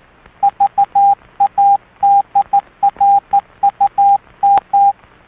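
Morse code sent as a CW tone: a single steady beep keyed in short dots and longer dashes with letter gaps, over a faint radio hiss. One sharp click comes about four and a half seconds in.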